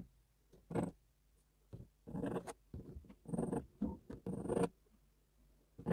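Mechanical pencil drawing on cardboard: a run of short scratchy strokes, each well under a second, with brief pauses between them as lines are sketched.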